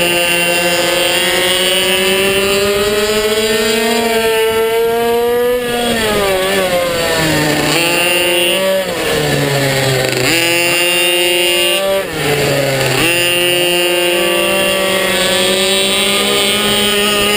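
Minibike engine heard on board at high revs. Its pitch climbs steadily on the straights and drops sharply several times as the throttle closes for corners, then climbs again.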